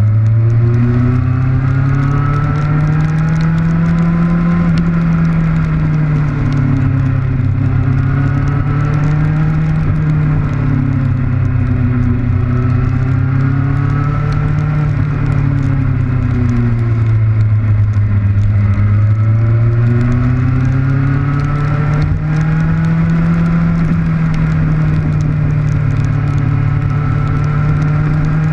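Kawasaki Ninja motorcycle engine heard from on the bike while riding, its note rising and falling several times as the throttle opens and closes, over a steady hiss of wind and rain on the camera.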